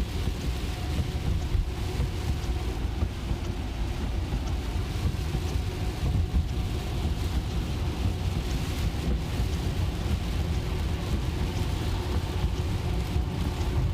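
Steady road noise inside an electric car's cabin at highway speed on a rain-soaked road: tyres running through water with a continuous low rumble.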